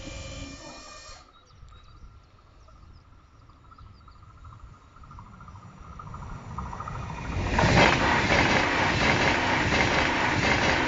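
A steady warning tone from the level crossing cuts off about a second in, with the barriers down. A double-deck Intercity train then approaches, growing louder from about five seconds in, and passes close by from about seven and a half seconds in, with the rhythmic clatter of its wheels on the rails.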